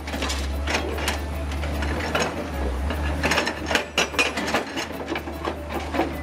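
Excavator-mounted hydraulic breaker hammering on reinforced concrete: a rapid, uneven rattle of chisel impacts over the steady low drone of the excavator's engine.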